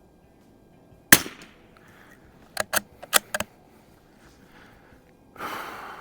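A single sharp rifle shot from a Mossberg 44US .22 rimfire bolt-action rifle about a second in, followed by a quick run of metallic clicks as the bolt is worked to eject the case and chamber the next round. A softer rushing noise starts near the end.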